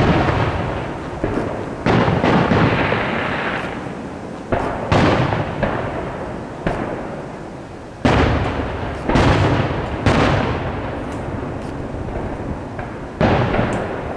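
Aerial firework shells bursting, about eight sharp booms at irregular intervals of one to three seconds, each followed by a long fading echo.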